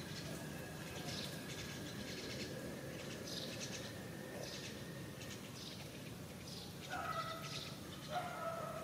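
Birds chirping in repeated short calls over steady outdoor background noise, with a thin steady whine that stops about halfway. Near the end, two drawn-out animal calls, each falling slightly in pitch, the second longer.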